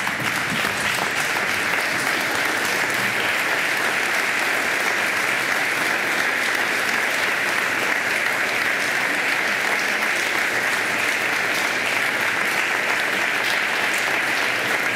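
Steady applause from a large group of people clapping together, a standing ovation.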